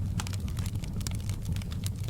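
Wood fire burning in a fireplace: a low steady rumble of flames with many small, irregular crackles and pops from the burning logs.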